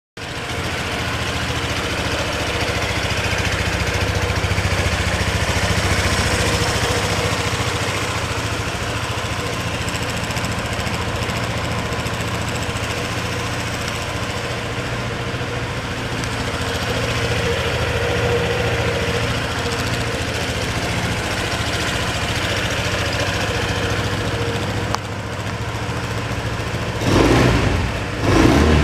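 Honda PCX125 scooter's single-cylinder four-stroke engine idling steadily through its stock muffler, then revved twice in quick blips near the end.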